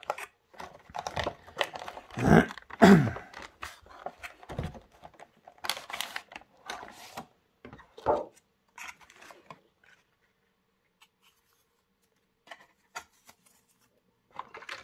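Cardboard box and clear plastic packaging being handled: rustling, scraping and crinkling, with louder knocks and scrapes about two to three seconds in and again around six and eight seconds. After that it goes mostly quiet, with a few small clicks.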